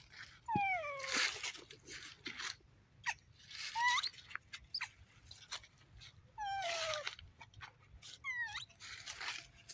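Baby macaques calling: a series of short coo calls, about five in all, most falling in pitch and one rising near the middle, with bursts of rustling between them.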